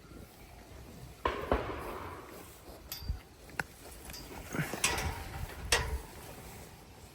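A handful of irregular sharp knocks and clatters, about six, over a few seconds.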